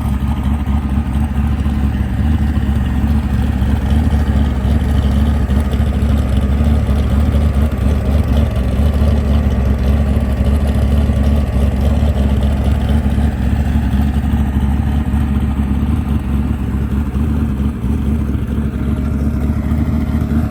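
A vehicle engine running steadily, a loud low rumble with no revving.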